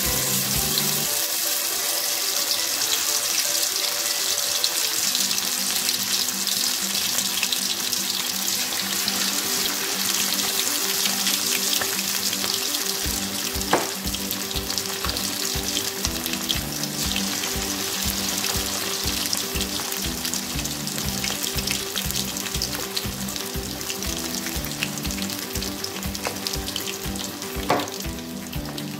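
Marinated chicken pieces deep-frying in hot oil in an aluminium kadhai: a steady, dense sizzle and crackle. Two short sharp clicks, one about halfway and one near the end.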